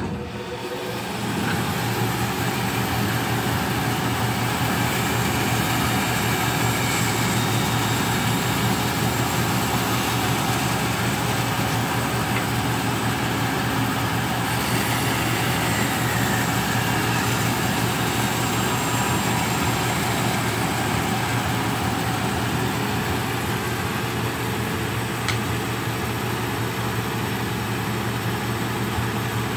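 Large floor-standing band saw switched on, its motor coming up to speed within about a second, then running steadily with a low hum and hiss while a wooden board is fed through the blade.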